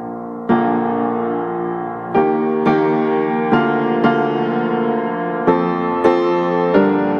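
Background piano music: slow, sustained chords and notes, with new ones struck about every second.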